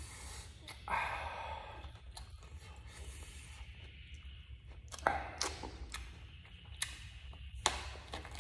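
A person eating eggplant: chewing and mouth noises, with a breath about a second in and a few sharp mouth clicks in the second half.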